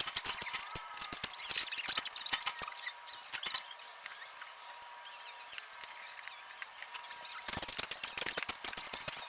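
Hand-tool work on metal compressor parts: scattered clicks and taps, quieter for a few seconds, then a loud stretch of harsh, high-pitched scraping that starts suddenly about seven and a half seconds in.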